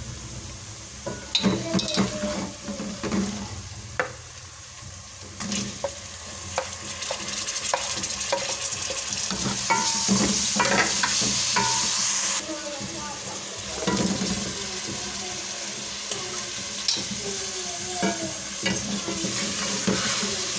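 Palak chicken frying in a pan while a spoon stirs and scrapes it, with frequent clicks of the spoon against the pan over a steady sizzle. The sizzle grows louder for a few seconds around the middle, then drops back suddenly about twelve seconds in.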